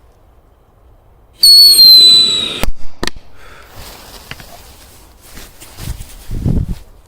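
Pyrotechnic whistle firing: a loud, high, slightly falling shriek about a second long, ended by a sharp bang and a second bang just after. Scattered crackling follows, then a low rumbling blast near the end.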